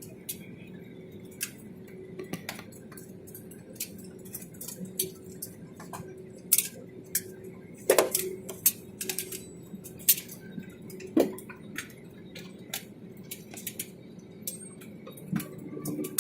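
Airbus A320 cabin hum, steady and low, with many scattered sharp clicks and clinks of loose fittings and objects rattling, loudest about eight and eleven seconds in.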